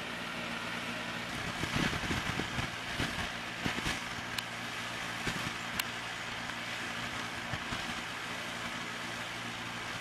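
Steady low mechanical hum, with a burst of knocks and rustling about two to four seconds in and two sharp clicks shortly after.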